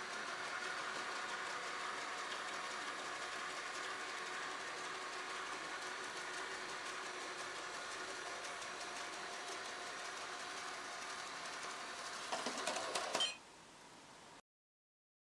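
Robot vacuum cleaner running with a steady motor and brush hum. About twelve seconds in there is a brief louder rattle, then the sound cuts off suddenly.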